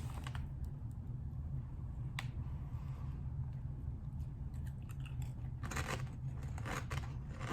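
Someone crunching on crinkle-cut kettle potato chips: scattered sharp crunches, bunched mostly in the second half, over a steady low hum.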